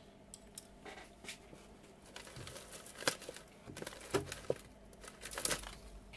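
DuPont jumper wires being handled and laid down on a workbench: light rustling with scattered small clicks and taps, the sharpest about three seconds in, just after four seconds and around five and a half seconds.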